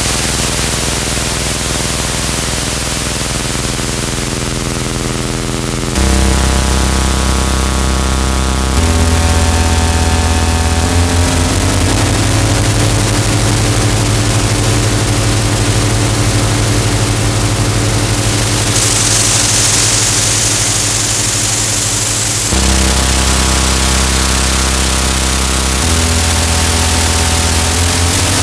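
Roland AIRA Compact S-1 synthesizer playing harsh noise: a dense wash of white noise over held low drone tones, the tones changing abruptly every few seconds. For a few seconds past the middle the highest part of the hiss drops away.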